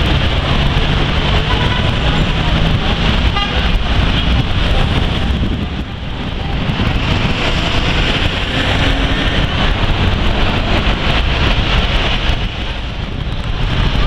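Dense city-centre traffic: city buses and cars running through a busy intersection, making a steady din of engine hum and street noise.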